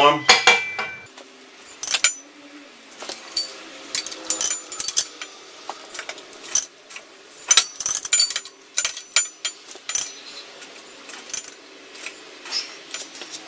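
Hand ratchet wrench clicking in short irregular runs as the bolts of a puller are tightened a little at a time to press a pulley off its shaft, with light metallic clinks.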